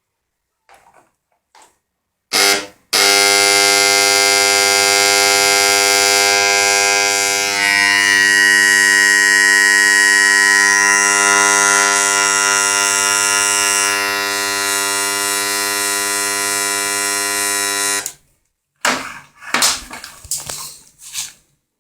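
Modified microwave oven transformer switched on, giving a loud, steady electrical buzz full of overtones. It comes after a brief burst about two seconds in and lasts roughly fifteen seconds before cutting off suddenly; a few knocks and rattles follow near the end.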